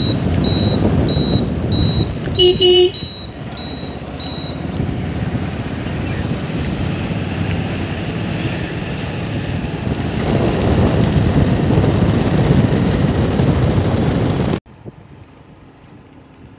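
Wind buffeting the microphone and road noise from a moving motorbike. A turn-indicator buzzer beeps about every two-thirds of a second through the first few seconds, with a short horn honk among the beeps. The loud rush cuts off suddenly near the end to a much quieter background.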